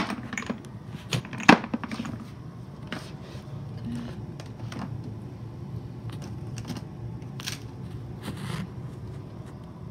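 Small plastic and glass spice jars and bottles knocking and clicking against each other as a hand rummages through a crowded kitchen drawer. Two sharp knocks come in the first two seconds, then scattered light clicks.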